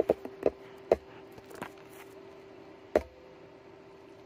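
Scattered clicks from a computer keyboard and mouse, about half a dozen in the first three seconds, over a steady hum.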